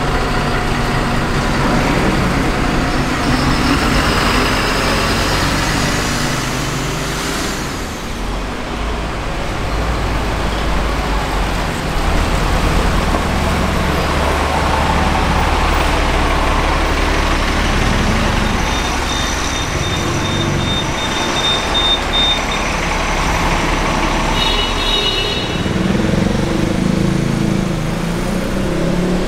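Busy city-street road traffic: vehicle engines running and passing close by, with a steady low rumble. A brief high-pitched beeping comes about two-thirds of the way through.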